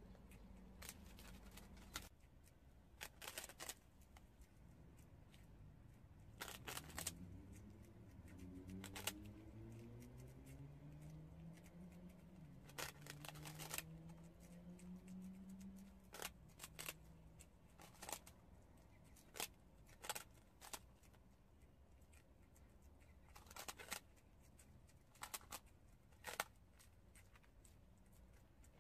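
Prairie dogs biting and crunching puffed rice cakes: sharp, irregular crisp crunches and clicks, sometimes several in quick succession, with pauses between. A faint low hum slowly rises in pitch through the middle.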